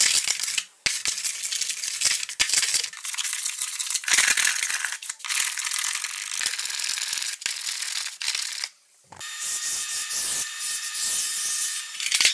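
Small hand block plane shaving cedar strips on a strip-built canoe hull: repeated rasping strokes of under a second to a couple of seconds each, with short breaks between them.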